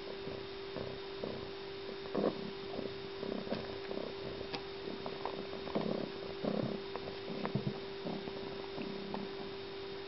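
A steady low hum, with soft irregular bumps and a few faint clicks over it.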